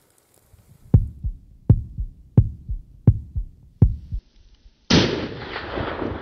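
Heartbeat sound effect: five double "lub-dub" beats about 0.7 s apart. About five seconds in, a loud rifle shot goes off and its report rolls away.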